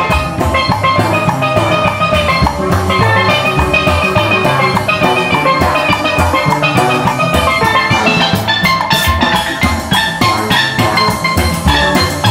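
Jazz band music with a drum kit keeping a steady beat under bright, quick pitched melody notes.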